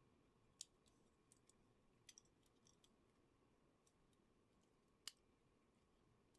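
Faint, scattered clicks and taps of small hard parts being handled, with the sharpest one about half a second in, a quick pair near two seconds and another near five seconds, over near-silent room tone.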